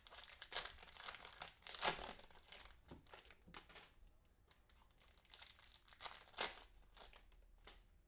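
Cellophane wrapping of trading-card cello packs crinkling and tearing as the packs are opened by hand, an irregular run of crackly rustles with the sharpest about two and six seconds in.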